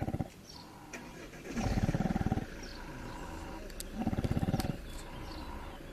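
Pig snoring in deep sleep: fluttering snores, each a rapid pulsing train lasting under a second, coming about every two to two and a half seconds: one right at the start, one about one and a half seconds in, one about four seconds in.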